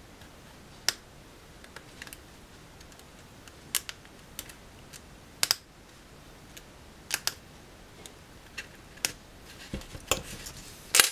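Paper-match heads being snapped off their sticks by hand: a string of small, sharp clicks at irregular intervals, roughly one every second, with a louder one near the end.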